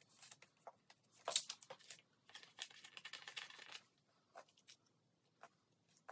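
Photocards being slid into the pockets of a clear plastic binder sleeve: crinkling plastic and card clicks, sharpest a little over a second in, with a longer rustle in the middle, then a few soft ticks.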